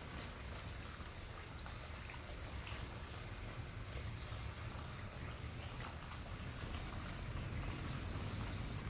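Water running steadily from a floating-faucet tabletop fountain and splashing into its basin, over a steady low hum.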